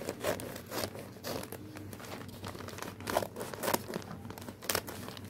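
Brown paper mailer bag crinkling as it is handled and cut open with scissors, with a few sharper snips or crackles in the second half.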